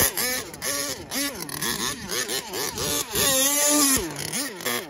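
HPI Savage XL Octane RC monster truck's small petrol engine revving up and down repeatedly as it is driven, its pitch rising and falling a couple of times a second.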